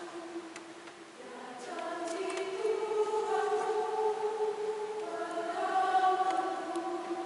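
Mixed choir of women's and men's voices singing a hymn in long, held notes. One phrase dies away about a second in, and the next builds up and eases off again near the end.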